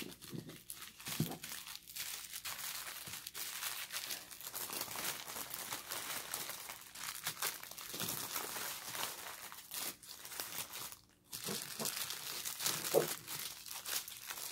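Small clear plastic bags of diamond painting drills crinkling and rustling as they are handled and shuffled, with many little clicks, pausing briefly about eleven seconds in.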